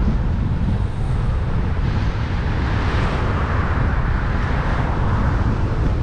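Strong wind buffeting the camera's microphone with a constant low rumble, while a car's tyre and road noise swells and fades as it passes the bicycle.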